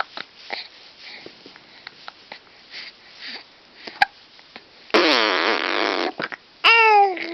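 Soft breathing and small mouth noises. About five seconds in comes a loud, second-long blown raspberry, lips buzzing with a wavering pitch. Near the end there is a short, high vocal squeal that falls in pitch.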